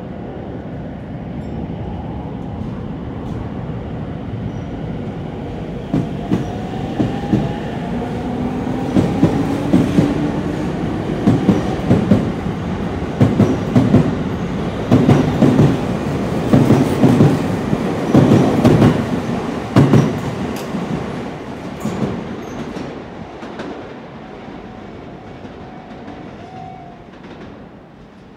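Sotetsu 10000 series electric commuter train pulling out of the station. Its traction motors whine, rising in pitch as it gathers speed, then the wheels clack over the rail joints as the cars pass, and the sound fades away near the end.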